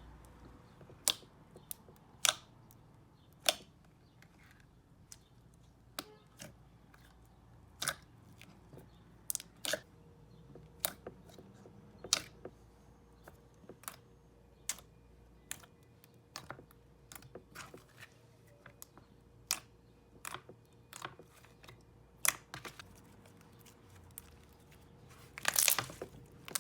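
Thick slime being worked by hand, giving sharp clicks and pops at irregular intervals, with a denser crackly run near the end.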